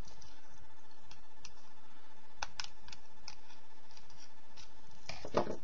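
Scattered light clicks of a pen knife blade prying at a first-generation iPod nano's casing, with a louder clatter about five seconds in.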